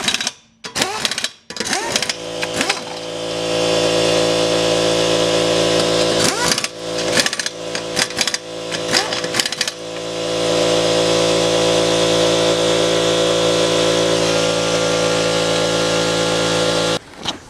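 A power tool's motor running at a steady speed for about fifteen seconds, then cutting off suddenly near the end, with voices over it at times.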